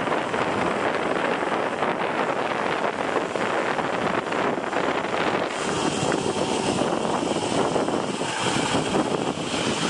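Zipline trolley pulleys running along the steel cable, a steady whirring rush mixed with wind on the microphone, turning hissier about halfway through.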